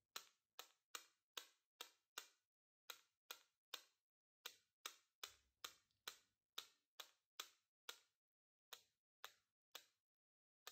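Faint, light clicks of a white Posca paint marker tapped against a scissor blade, about two to three taps a second with a few short pauses. Each tap flicks spatters of white paint onto the card.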